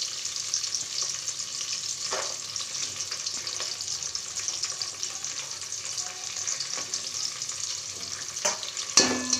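Sliced onions, green chillies and green peas sizzling steadily in hot oil and ghee in an aluminium pot, with a few light clicks, one about two seconds in and more near the end.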